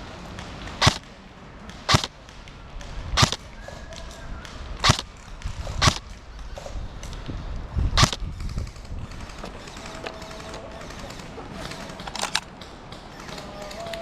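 Airsoft gun firing single sharp shots, about seven in all, spaced irregularly a second or two apart with a longer gap before the last.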